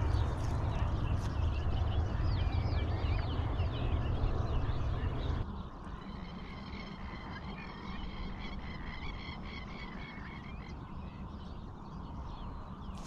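A chorus of animal calls: many short chirping calls over a low rumble for the first five seconds or so. The level then drops suddenly to a quieter, steady chorus of repeated calls.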